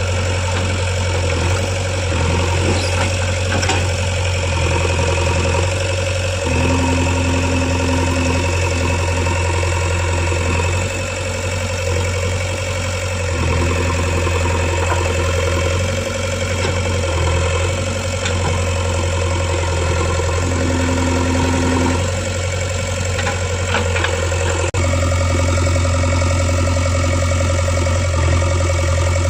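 JCB 3DX backhoe loader's diesel engine running steadily while the machine works, with a higher steady tone coming in briefly twice. The sound changes abruptly near the end.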